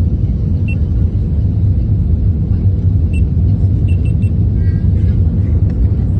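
Steady low cabin rumble of an Airbus A320 airliner on final approach, engine and airflow noise heard from a window seat.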